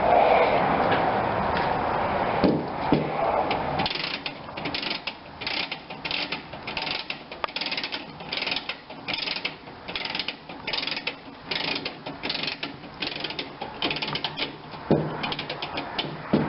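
Clockwork spring motor of an antique tin wind-up toy car being wound, its ratchet clicking in short bursts about twice a second. The first few seconds hold a rubbing, handling noise.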